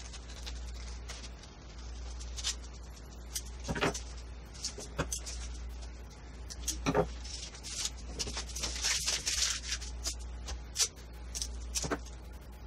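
Paper being cut with scissors and handled, played at four times speed: quick snips, scattered sharp clicks and crisp rustling, busiest a little past the middle, over a steady low hum.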